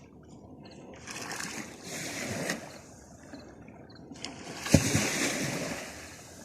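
Water splashing and sloshing in two spells, the second beginning with a sharp knock about three-quarters of the way through.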